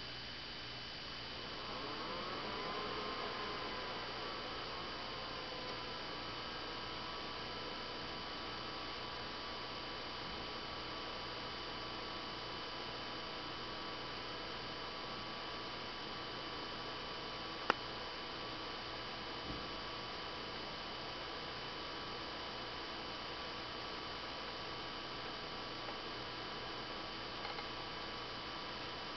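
BenQ W500 projector's cooling fans running with a steady hum and whine. About 1.5 s in the fan sound swells and its pitch shifts, settling back to a steady hum a few seconds later, and there is a single sharp click about halfway through.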